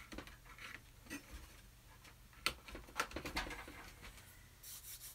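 Handling noise from a painting being repositioned on a wooden studio easel: scattered small clicks and taps, two sharper clicks about halfway through as the easel's top clamps are worked, then a soft, rhythmic rubbing of hands over the painting's surface near the end.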